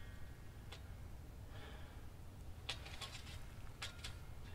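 Quiet background with a steady low rumble and a few faint, scattered light clicks.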